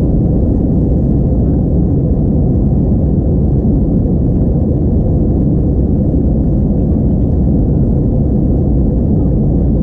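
Steady low rumble inside the cabin of an Airbus A321-231 in flight: its IAE V2500 turbofan engines and the airflow over the fuselage, heard from a window seat over the wing.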